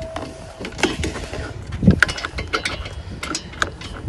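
Dump cart's plastic tow handle and metal hitch pin being handled: a string of separate clicks and knocks as the pin and its clip are worked at the handle.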